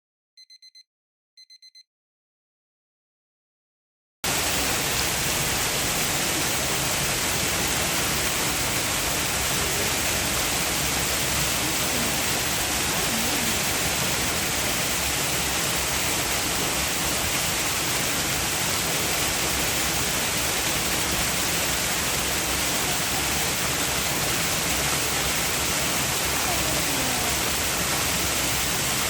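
Three short electronic beeps, then, about four seconds in, a steady, even rushing hiss of falling rain and water starts and carries on unchanged.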